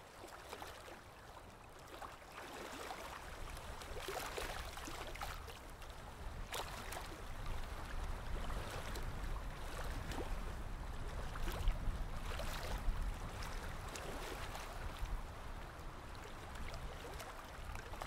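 Water in a goldfish aquarium trickling and gurgling over a steady low rumble, a little louder from about three seconds in.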